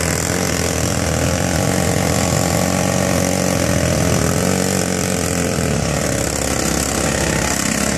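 Pneumatic jackleg rock drill hammering into rock at full power, a loud, steady, rapid clatter with a hiss of exhausting air, which cuts off abruptly right at the end.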